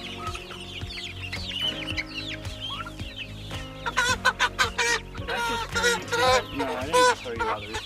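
A flock of chickens clucking and calling, growing louder with a run of loud squawks from about four seconds in.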